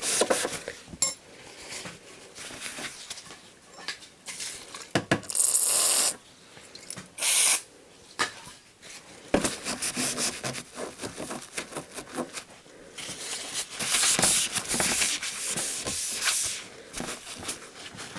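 Aerosol flux remover sprayed in two short hissing bursts, about five and seven seconds in, to clean brown flux residue off a soldered LED backlight board. Scratchy rubbing follows as the residue is scrubbed off the board.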